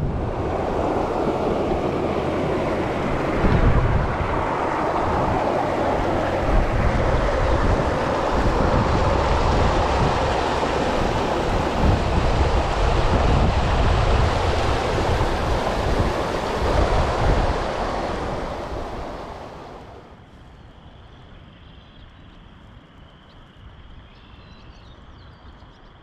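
Creek water rushing loudly over a shallow riffle, with wind rumbling on the microphone. About twenty seconds in it fades away to a much quieter scene with only a faint, steady high-pitched hum.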